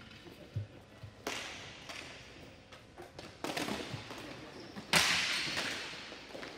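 Ball hockey play: three sharp hits of sticks, ball and boards, the loudest about five seconds in, each trailing off in a fading wash of noise.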